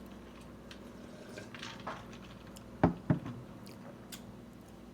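Quiet room with a low steady hum, broken by two short sharp clicks or knocks in quick succession about three seconds in.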